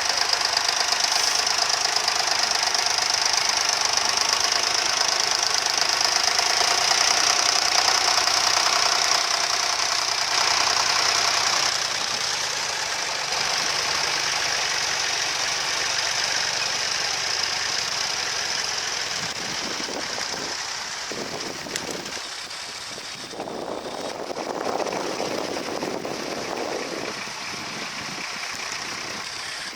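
Vintage tractor engine running, gradually growing fainter.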